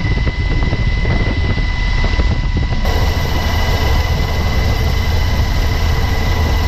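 Loud, steady aircraft engine roar with a thin steady whine above it; the sound shifts abruptly in tone about three seconds in.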